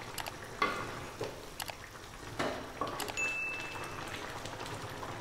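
Curry simmering and bubbling in a metal pan while a wooden spatula stirs through it, with several soft knocks and scrapes of the spatula against the pan. A brief steady ping sounds a little after three seconds in.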